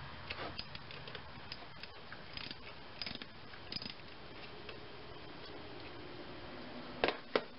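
Ratchet wrench clicking in short, irregular spells as the 13 mm nut on the starter's B+ terminal is loosened, with two louder clicks near the end.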